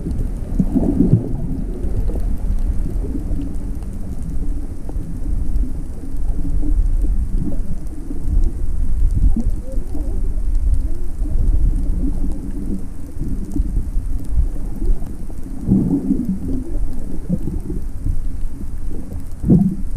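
Muffled low rumble and sloshing of water heard by a camera submerged in its waterproof housing, with a few louder surges about a second in and twice near the end.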